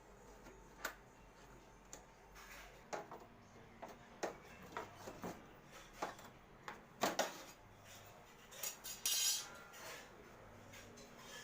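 Metal parts and hand tools clinking and knocking as a window air conditioner is taken apart: a string of separate sharp clinks, with a short scraping rattle about nine seconds in.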